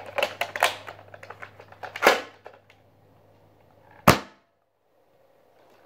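Plastic clicks and rattles from a toy Nerf blaster being handled, with a louder clack about two seconds in and one sharp snap about four seconds in.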